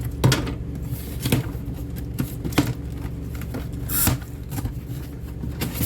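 Cat food packets and cans being handled and set down: a few light knocks and clicks at irregular intervals, with a brief rustle about four seconds in, over a steady low hum.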